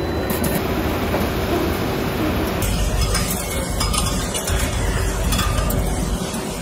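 Bakery production machinery running: a steady mechanical hum and hiss from a dough-ball conveyor and press. About two and a half seconds in it changes to a deeper, steady rumble with hiss from the khubz flatbread oven line.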